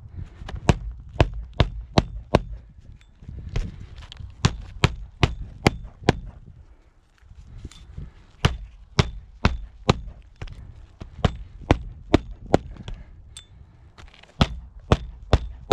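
Magnetic roofing hatchet driving roofing nails into asphalt shingles: several runs of four to six sharp strikes, a little over two a second, with a pause of about two seconds near the middle. The shingles are being re-nailed where their old nails broke free.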